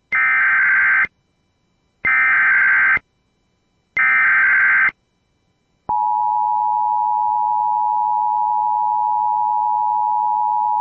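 Emergency Alert System SAME header: three one-second bursts of digital data tones, about two seconds apart, encoding an Evacuation Immediate alert. About six seconds in, the steady two-tone EAS attention signal starts and holds.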